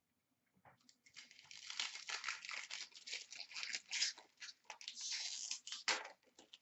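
Foil wrapper of a trading card pack being torn open and crinkled by hand: a run of dense crackling that starts about a second in and stops shortly before the end.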